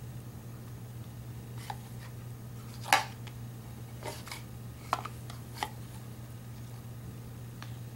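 A few light knocks and clacks of small plastic bowls being handled and stacked, the loudest about three seconds in, over a steady low hum.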